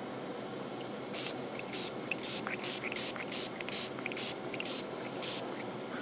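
Trigger spray bottle squirted in a quick series of about a dozen short hissing sprays, roughly three a second, starting about a second in.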